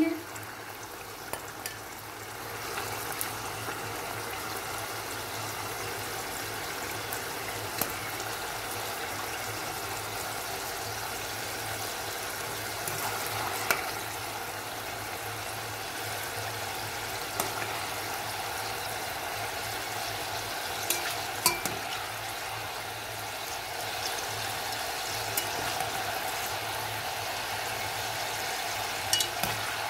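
Chicken pieces deep-frying in hot oil in a karahi: a steady sizzle and bubbling. A few sharp clicks come through it as metal tongs lift the fried pieces out of the pan.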